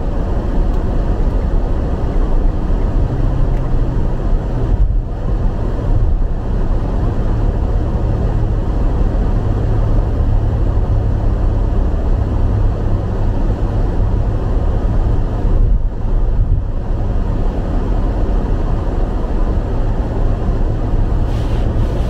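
Steady cabin road noise of a car driving at highway speed on a snow-dusted road: a low, even rumble of tyres and engine with a steady low hum.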